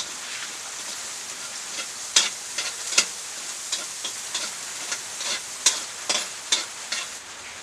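Food frying in a pan with a steady sizzle, while a cooking utensil is stirred through it, clinking and scraping against the pan in a dozen or so sharp, irregular strokes.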